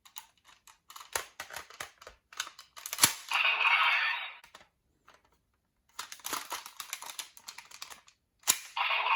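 Folded paper toy being handled and reshaped: a run of small clicks and taps of stiff paper, with two bursts of rustling, sliding paper, one about three seconds in and one near the end.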